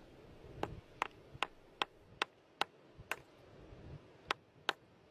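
Light, sharp taps on a hand-held fossil-bearing rock, to crack it open: seven evenly spaced ticks, about two and a half a second, then a pause and two more.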